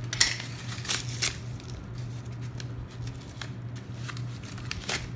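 Plastic packaging bag being torn open by hand, the plastic crinkling, with sharp rips just after the start, around a second in, and again near the end. A steady low hum runs underneath.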